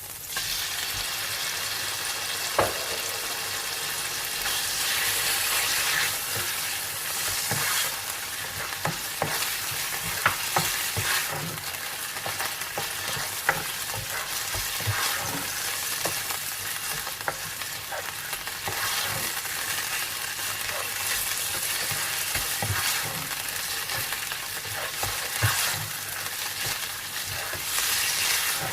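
Cubed chicken breast frying and sizzling in butter with garlic in a pan, stirred now and then, with short clicks of the utensil against the pan.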